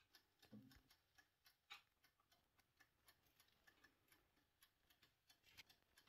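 Near silence, with a few faint, scattered clicks and taps.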